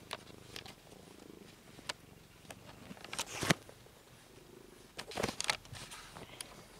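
Domestic cat purring, with a low rumble running close to the microphone while it is stroked. Scratchy rustles and clicks of a hand moving over the fur and bedding break in, the loudest a sharp click about halfway through and a cluster of rustles about five seconds in.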